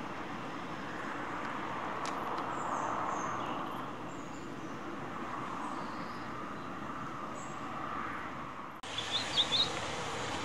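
Distant diesel locomotive running, heard as a steady low rumble. After a sudden cut about nine seconds in, a bird chirps a few times.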